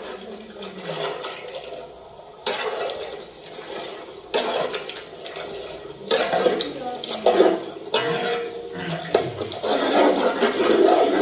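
Marinated mutton tipped from a steel bowl into a large metal pot of wet masala, then a big ladle stirring and scraping through it, with clinks of metal on metal. The sound comes in several separate bouts that each start abruptly.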